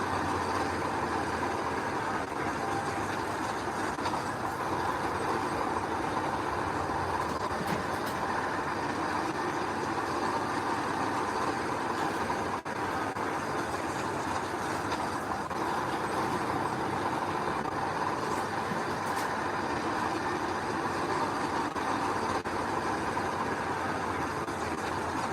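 Heavy earthmoving machinery running steadily, a constant diesel engine drone, with a brief drop-out about halfway through.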